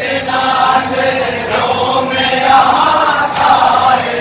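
A group of men chanting a nauha (Shia lament) together, unaccompanied. Two sharp slaps of rhythmic chest-beating (matam) fall about 1.8 seconds apart, in time with the chant.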